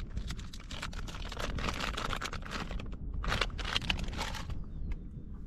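Crinkling and rustling of plastic soft-bait packaging with small handling clicks as a paddle-tail lure is taken out, busiest about three and a half seconds in, over a steady low rumble.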